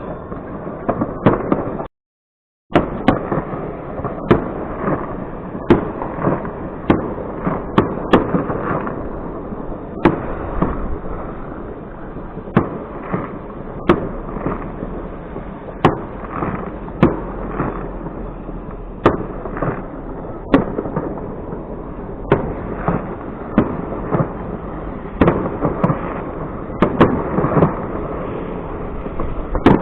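Fireworks going off: a long run of sharp bangs, roughly one a second, over a continuous crackle.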